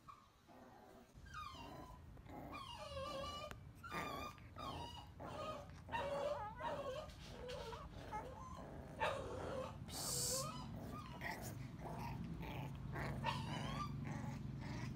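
Puppies play-fighting: a run of short, high yips and whines mixed with small growls. A low steady hum comes up near the end.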